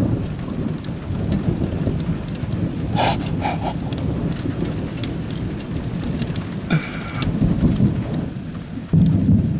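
Thunder rumbling continuously over steady rain, with a new sharp crack of thunder about nine seconds in.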